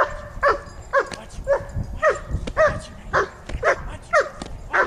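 A dog barking steadily, about two barks a second, each bark dropping in pitch. It is being worked up by a helper waving a rag during bite-work training.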